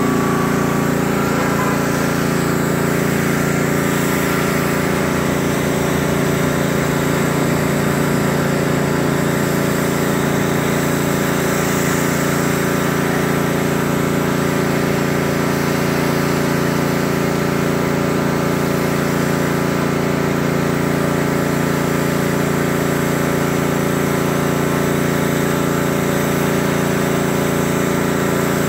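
Pressure washer's small engine running steadily, with the hiss of the wand's water jet on the concrete sidewalk.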